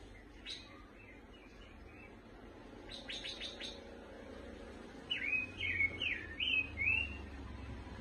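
A caged pancawarna songbird singing. A few short calls and a quick run of sharp ticking notes are followed, about five seconds in, by a loud string of five or six swooping chirps.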